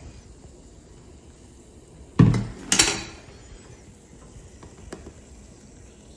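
A vinegar jug and ceramic measuring cup handled on a table: two knocks about half a second apart, a little over two seconds in. The first is a duller thump, the second a sharper clink.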